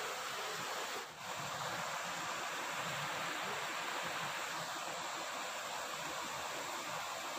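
Steady rush of flowing river water, dipping briefly about a second in.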